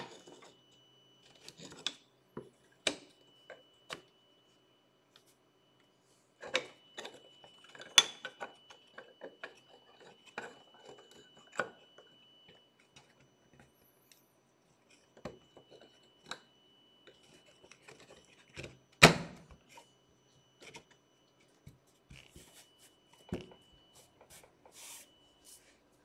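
Wooden strips clicking, knocking and rubbing against each other and the machine table as they are handled and pushed into place by hand, with one sharp knock about three-quarters of the way through. A faint steady high whine sits underneath.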